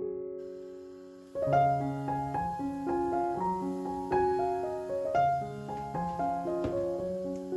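Background piano music: a gentle melody of struck notes that fade out, with a louder phrase coming in about a second and a half in.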